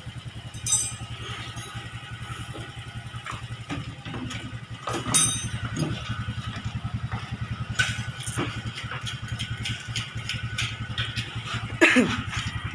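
A motorcycle engine idling steadily with a fast even pulse, broken by a few sharp clinks about a second in, near the middle, and near the end.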